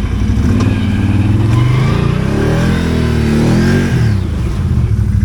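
ATV engine revving up and falling back over a couple of seconds, over a steady engine hum.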